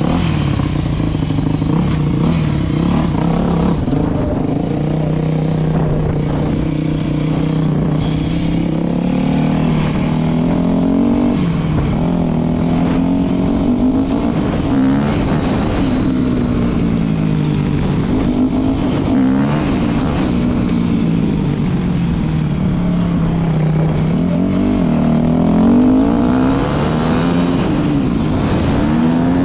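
Yamaha YZ250 two-stroke dirt bike engine, heard from the rider's seat. It holds a steady idle for the first couple of seconds, then revs up and down over and over as the bike pulls away and rides through the gears.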